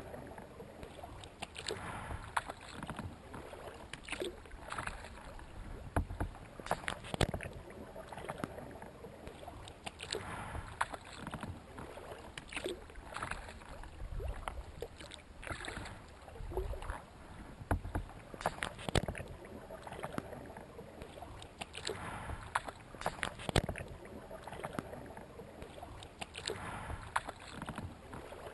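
Kayak paddle strokes in calm water: a splash and drip about once a second as the blades dip and lift, over soft water lapping along the hull.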